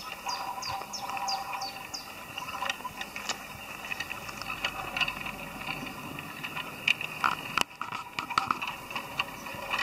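Garden-scale model train running along outdoor track, with irregular clicks and rattles from its wheels and wagons. A quick run of high chirps sounds in the first two seconds.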